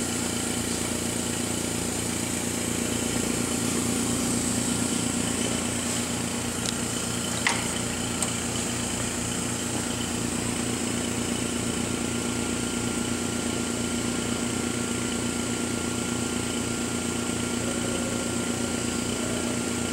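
Steady machine hum with fan noise from the running Karl Suss MJB3 mask aligner and its UV lamp power supply, with the mercury lamp lit. A single sharp click comes about seven and a half seconds in.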